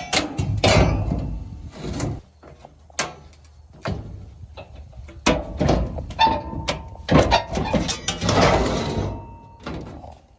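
Sheet steel being beaten and bent by hand against a steel dump trailer: irregular clangs and thuds with scraping metal, and a short metallic ring a little after halfway.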